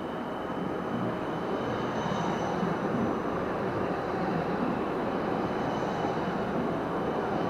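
A red Bernmobil city tram approaching and rolling past close by on its rails, a steady rumble growing gradually louder, with a faint high whine over it.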